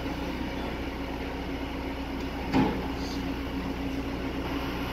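Steady low engine drone, with a single knock a little past halfway.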